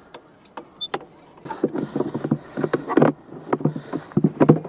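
A few sharp clicks from the screwdriver and loose screws, then the electric scooter's plastic battery box scraping and creaking against the frame as it is worked up and out of the seat compartment.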